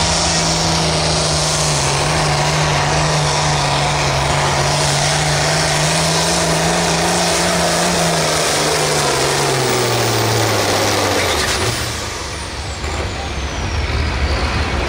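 Turbocharged Farmall 1206 diesel pulling tractor running at full throttle under the load of a pulling sled, its engine note steady at first, then sagging in pitch as it bogs down after about eight seconds. Past eleven seconds the throttle comes off, the engine drops away and a high turbo whine winds down.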